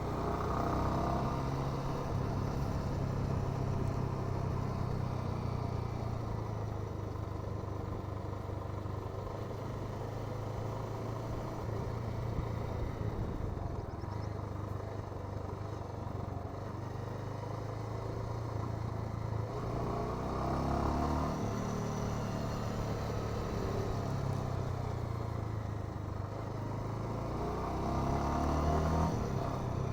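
Bajaj Avenger 220 motorcycle's single-cylinder engine and exhaust running steadily under way, its revs climbing twice, about two-thirds of the way through and again near the end.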